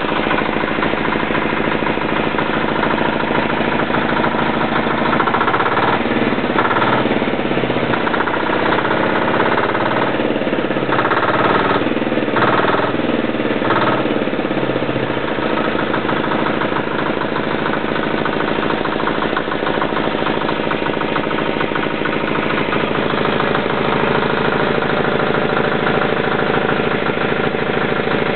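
Freshly rebuilt Suntom 186CF 406cc single-cylinder air-cooled diesel engine in a Royal Enfield running at idle. From about five seconds in to about fifteen seconds in its speed rises and falls a few times, then it settles back to a steady idle.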